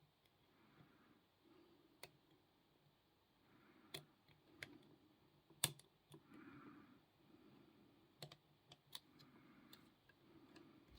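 Faint clicks and taps of a lock pick working the pins of a Ruger pin-tumbler padlock, scattered and irregular, with one sharper click a little past the middle.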